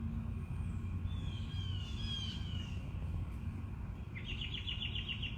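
Birds chirping over a steady low background rumble: a few short falling whistles, then a quick run of repeated chirps near the end.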